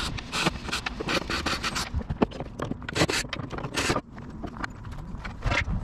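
Wooden leg blocks and a plywood bed panel being handled on a plywood worktop: a run of irregular scrapes and knocks, wood against wood.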